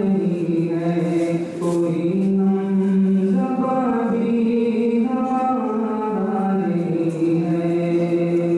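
A man's solo unaccompanied voice melodically chanting an Islamic devotional poem (nazam) into a microphone, holding long drawn-out notes with brief pauses for breath.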